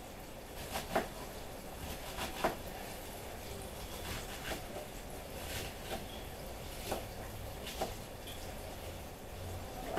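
Kitchen handling noises while a salad is made: a few scattered light knocks and clicks, the sharpest about a second in and again about two and a half seconds in, over a steady faint background hiss.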